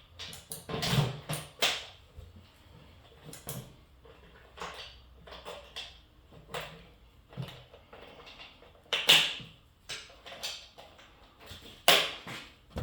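Irregular clicks, knocks and light clatter of parts being handled and fitted back onto a Yardbird chicken plucker, with the sharpest knocks about nine and twelve seconds in; the plucker's motor is not running.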